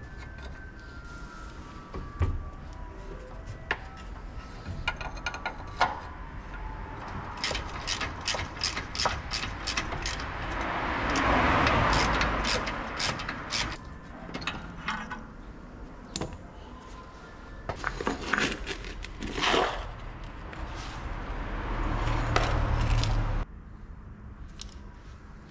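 Hand tools clicking and clattering during repair work on a car, with a rushing hiss for a few seconds near the middle and a low hum that stops shortly before the end.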